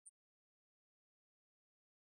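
Near silence: a dead sound track, with one brief faint high click right at the start.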